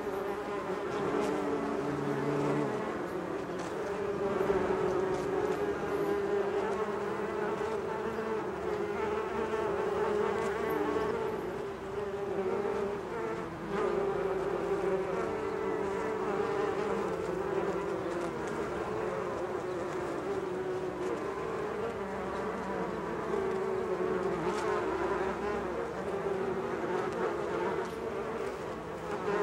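Swarm of bees buzzing: many wingbeat hums overlap into a steady, wavering drone.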